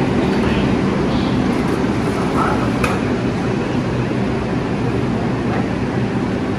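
New York City subway 3 train standing at the platform, its cars' equipment humming steadily under a wash of station noise, with a short sharp click about three seconds in.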